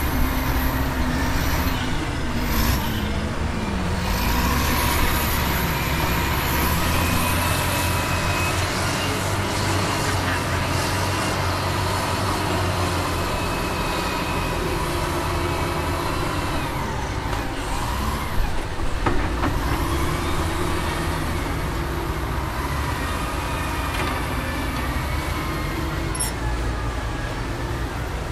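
Dump truck's engine running steadily, a continuous low rumble.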